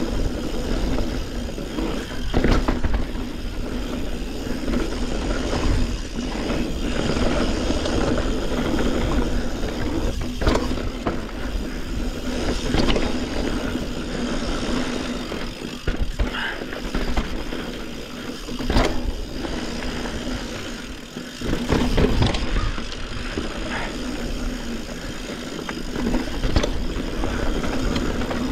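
Yeti SB140 full-suspension mountain bike riding down a rough dirt and rock trail: tyres rumbling over the ground, with frequent sharp knocks and rattles as it hits rocks and bumps, and a steady low rumble of wind on the handlebar camera's microphone.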